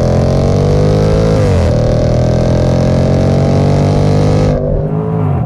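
Range Rover Sport SVR's 5.0-litre supercharged V8 heard close at the exhaust tips with the sport exhaust valves open, accelerating hard: the engine note climbs, dips at an upshift about one and a half seconds in, climbs again, then falls away as the throttle is lifted near the end.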